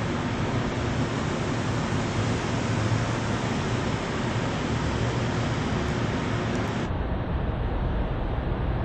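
Steady background hiss with a low hum, with no distinct events; about seven seconds in, the high end suddenly cuts away and a duller rumble carries on.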